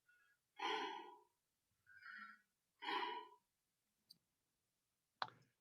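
Faint breaths in a noise-reduced voice recording: two breathy exhalations about two seconds apart, with a softer one between, and almost nothing of the background hiss left in the gaps. A single sharp click near the end.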